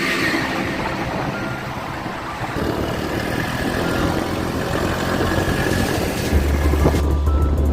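Motorbike on the move: engine and road noise with wind on the microphone. A deep, steady bass note comes in near the end.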